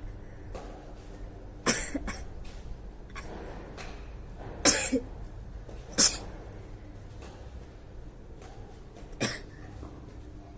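Sneezing and coughing set off by a sutra neti thread in the nose: four loud, sudden bursts a second and a half to three seconds apart, with fainter ones between.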